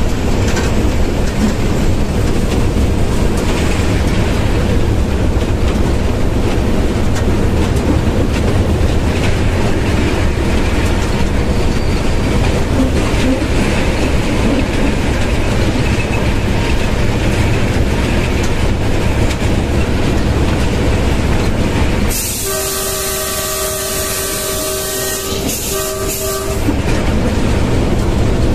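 Diesel locomotive running at about 80 km/h, heard from inside the cab as a steady low rumble of engine and wheels on the rails. About 22 seconds in, the locomotive's horn sounds several tones at once in a long blast, breaks off briefly, then ends with a short blast.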